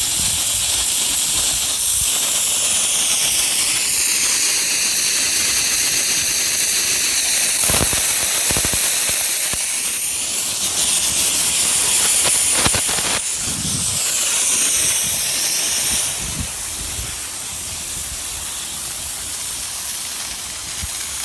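Steady hiss of compressed air blowing through a lawn sprinkler system to clear it for winter, air and leftover water rushing out of the sprinkler heads, with a few faint knocks and a slightly quieter last few seconds.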